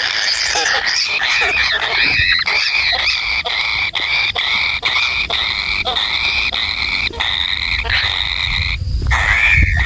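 Nestling birds calling in a continuous shrill cry, wavering around one pitch with a few brief breaks.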